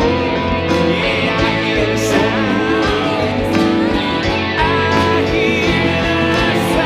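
Electric slide guitar, a Fender Stratocaster, playing gliding, bending notes over a backing track with a steady drum beat.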